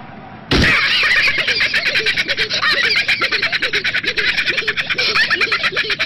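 High-pitched, squeaky cartoon voices giggling and chattering in rapid little syllables. The sound starts about half a second in with a low thud after a brief lull.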